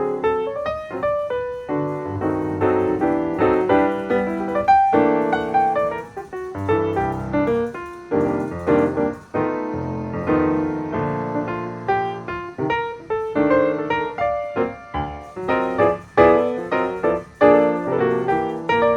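Background piano music, a steady flow of struck notes.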